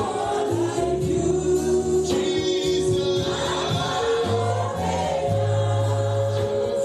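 Gospel choir singing, with held sung notes over a steady bass line.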